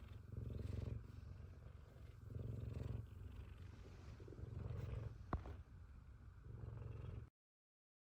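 An F2 Savannah cat purring up close, a low rumble that swells and eases about every two seconds. A single sharp click about five seconds in; the sound cuts off suddenly near the end.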